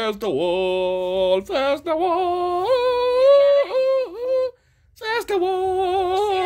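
A voice singing a wordless tune in long held notes, stepping up in pitch about halfway through and breaking off briefly near the end before carrying on.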